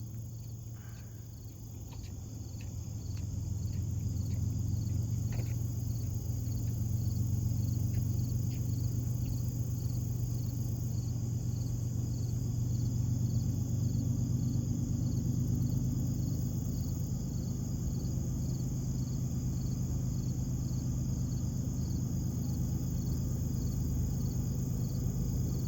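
Crickets chirping steadily, over the low rumble of approaching freight-train diesel locomotives that grows louder a few seconds in and then holds steady.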